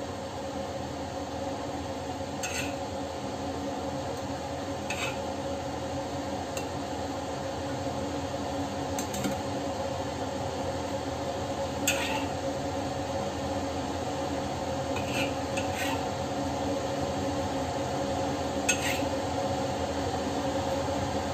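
Spatula clinking and scraping against a wok and a steel serving bowl every couple of seconds as cooked bitter melon and spareribs are scooped out, over a steady hum.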